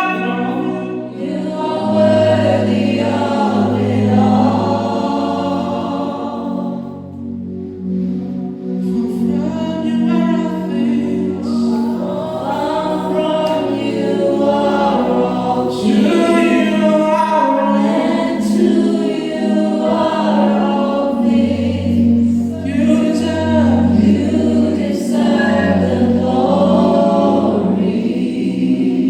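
Gospel choir singing in harmony, with low, held bass notes underneath.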